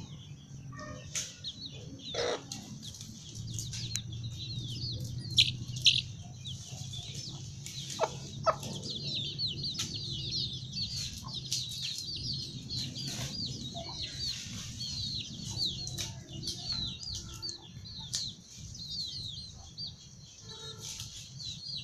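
Desi chicks peeping constantly in short, high, falling chirps, with a hen's occasional clucks and a few sharp clicks.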